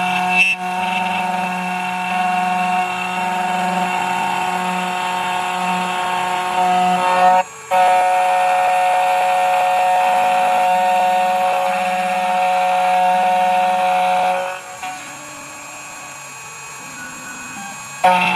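A 2M2 Tank CNC key cutting machine's spindle motor runs with a steady whine as its cutter mills an HU83 key from a copper key blank. The whine drops out for a moment about seven and a half seconds in, falls to a quieter hum about fifteen seconds in, and comes back loud near the end.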